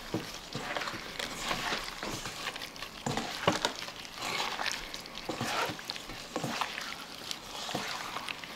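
Raw chicken breasts being kneaded by a gloved hand in an oily marinade in a stainless steel bowl: irregular wet squishing and slapping, with a few sharper clicks.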